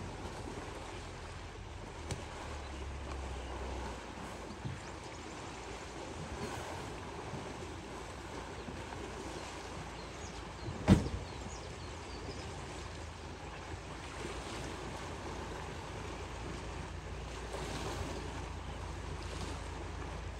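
Water sloshing and splashing as a herd of African elephants bathes and wrestles in the water, over a steady low rumble of wind on the microphone. A single sharp knock stands out about eleven seconds in.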